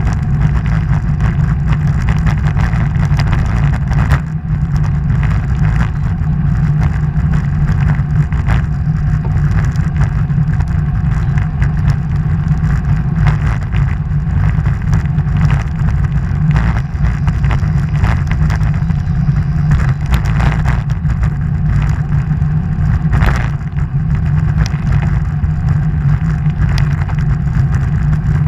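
Steady wind rumble on the microphone of a camera mounted on a moving road bike, mixed with tyre noise from the road and scattered short knocks from the bike's vibration.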